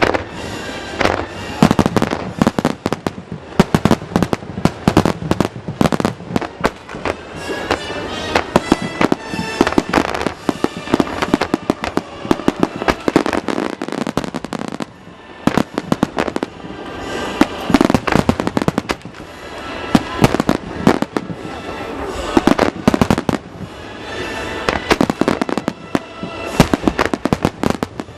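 Fireworks shells bursting in rapid, dense succession with crackling, a finale barrage, while music plays over loudspeakers.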